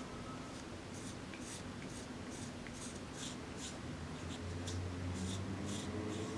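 Short scraping strokes, about two a second, with a low steady motor-like hum coming in about four seconds in.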